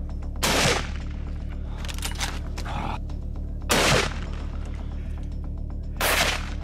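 Three loud rifle shots about three seconds apart, each with a brief ringing tail, over steady background music.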